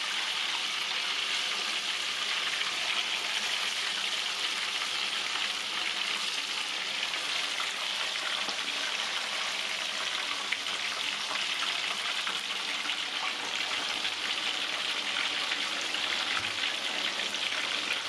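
Tofu pieces, still wet from a seasoning marinade, deep-frying in hot oil in a wok: a steady, dense sizzle full of fine crackles.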